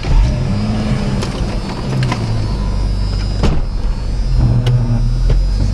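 A vehicle engine running under load at low speed, its pitch rising and falling as it revs, with a few sharp knocks scattered through.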